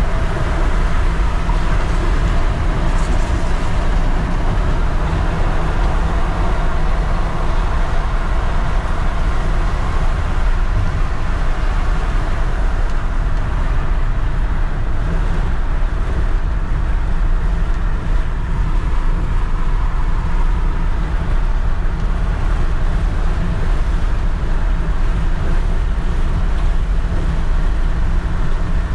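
Steady cab noise of a 2001 Ford F350 work truck cruising at highway speed: its 6.8-litre V10 gas engine running under the tyre and wind noise, mostly low-pitched and unchanging.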